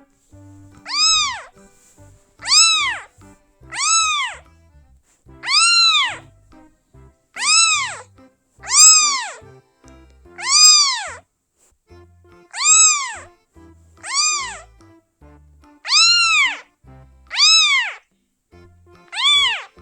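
Kitten meowing over and over, about twelve high-pitched meows roughly every second and a half, each rising then falling in pitch. Faint background music plays underneath.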